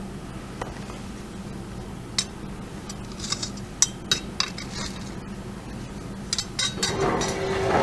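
Scattered clinks and scrapes of ceramic pottery shards knocking together as soil full of shards is dug through. A louder scraping rush comes near the end.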